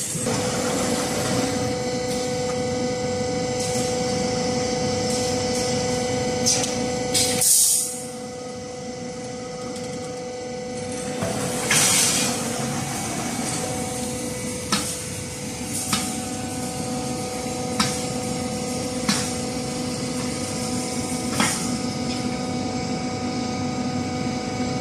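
Wire mesh production line machinery running: a steady mechanical hum with constant pitched tones, two short bursts of hiss, and sharp clicks every second or two in the second half.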